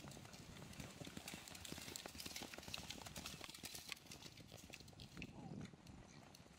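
Hooves of horses cantering on soft, wet turf, a quick run of dull thuds as riders come over a stone wall one after another and canter past.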